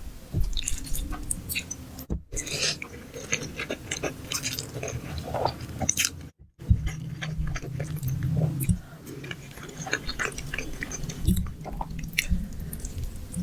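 Close-miked mouth sounds of someone eating spaghetti in big bites: wet chewing and smacking with many small irregular clicks, broken twice by brief silences.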